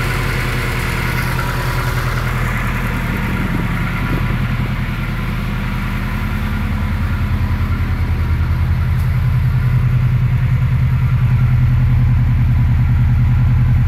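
Subaru WRX flat-four engine with forged pistons and H-beam rods idling with an even, rapid knock, the piston slap typical of forged pistons' looser clearances. It grows a little louder about halfway through.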